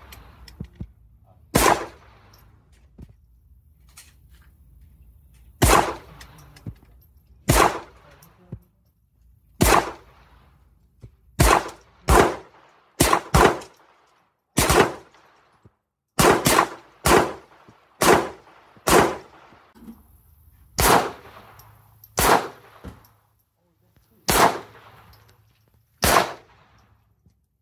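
Firearm shots fired one at a time at a range, about eighteen in all, spaced irregularly one to two seconds apart with a few quick pairs. Each shot trails off in a short echo.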